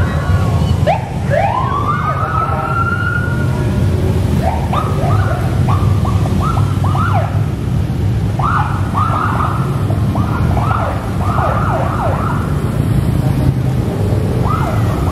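A column of police motorcycles passing with a steady engine rumble while their sirens give short rising whoops: one longer whoop about a second in, then quick runs of chirps, several a second, from about five seconds on and again near the end.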